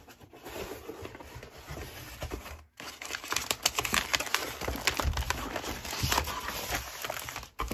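Cardboard mailer box opened and paper and packaging handled and lifted out: soft rustling at first, then denser crinkling, rustling and sharp clicks from about three seconds in.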